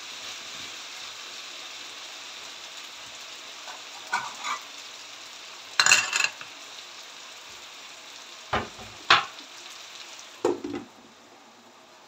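Diced potatoes sizzling as they fry in a non-stick frying pan, with a few sharp clatters of spatula and pans, the loudest about six seconds in. Near the end a glass lid goes on and the sizzle drops to a quieter hiss.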